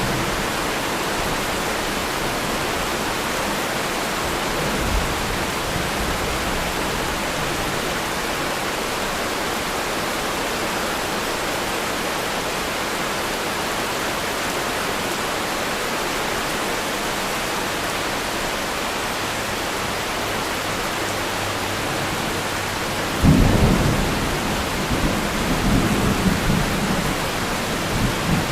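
Thunderstorm: steady rain throughout, with a faint low thump of distant thunder about 5 seconds in and a loud, sudden thunderclap about 23 seconds in that rumbles on for several seconds.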